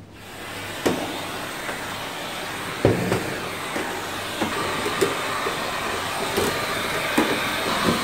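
Vacuum cleaner starting up and running steadily, its wand nozzle knocking against hard surfaces now and then, the two loudest knocks about one and three seconds in.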